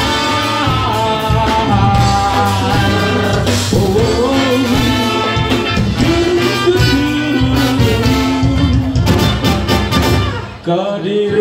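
Live ska band playing loudly through a PA, a horn section over electric guitar, bass and drums. The music drops out briefly near the end, then comes back in.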